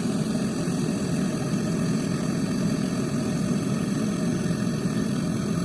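Brazing torch flame burning steadily while heating the compressor's copper suction-line joint, an even, unbroken rushing noise.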